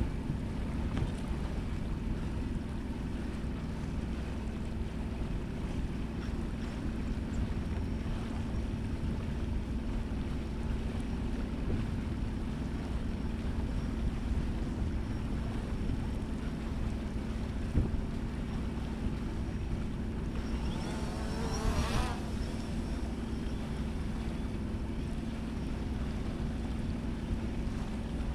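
Sailboat under way: wind on the microphone and water rushing past the hull, with a steady low hum. About 21 seconds in, a quadcopter drone's motors give a brief rising whine as it lifts off from the deck, ending in a sharp click.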